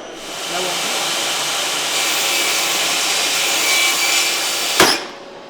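Power saw with a conductivity-sensing blade brake starts up and runs steadily, then a single sharp bang just before the end as the sensor detects a sausage touching the blade and the brake fires, after which the saw noise cuts off suddenly.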